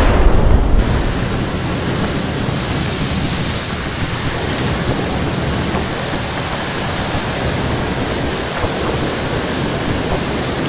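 Rocket launch roar: a steady, rushing noise from deep rumble to hiss, with the heaviest low rumble easing about a second in.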